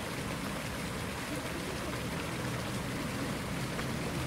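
Steady splashing of water falling from a small pond fountain onto the water's surface.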